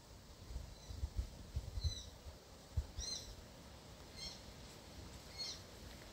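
A short, high chirping call repeated about once a second, with a few low thuds in the first few seconds.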